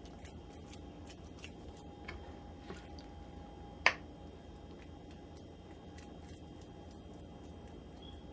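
A wet hand patting and pressing thick cornmeal and zucchini batter flat in a round baking pan: faint soft pats and small clicks, with one sharp click about four seconds in.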